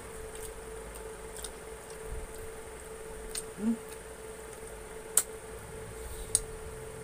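Close-up mukbang eating sounds: a few sharp mouth clicks and smacks as two people bite and chew chicken and rice with their hands, over a steady low hum.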